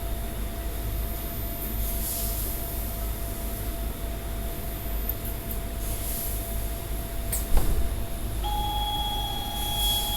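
Automatic TIG welding equipment running with a steady hum and hiss and a low rumble. A sharp click about seven and a half seconds in, then a steady electronic tone sets in about a second later.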